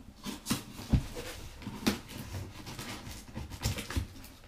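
A taped cardboard parcel being handled and opened by hand: scattered knocks, taps and scrapes on the cardboard, the sharpest about one and two seconds in, with light rustling between them.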